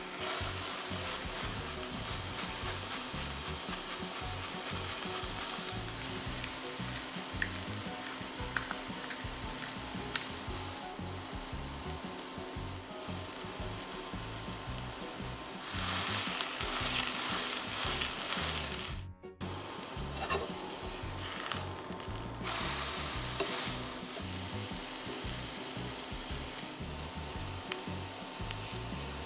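Food frying in a hot pan, sizzling steadily; it swells louder for a couple of seconds about 16 seconds in and again about 22 seconds in, with a momentary dropout between.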